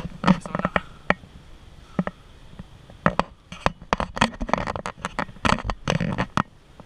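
Airsoft guns firing: irregular sharp cracks, some single and some in short rapid strings, thickest from about three seconds in.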